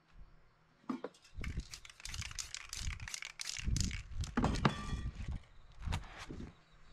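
Aerosol spray paint hissing in a quick run of short bursts as black strokes are sprayed along a paper edge. About six seconds in comes a sharp knock and the rustle of a paper mask being lifted.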